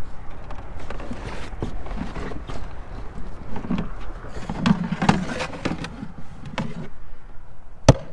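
Canoe hull shifting against the edge of river shelf ice with faint clicks and low bumps, then a single sharp knock near the end as a paddle is pounded on the shelf ice to test whether it will hold a person's weight.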